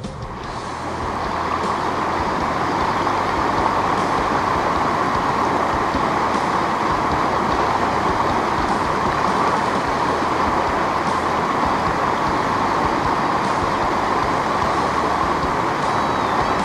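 River water rushing over a shallow stony riffle: a steady rush that swells up over the first second or two, then holds level.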